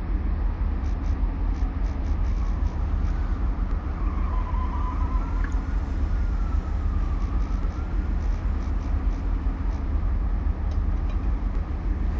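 City ambience: a steady low rumble of traffic, with a faint tone slowly rising and falling in the middle.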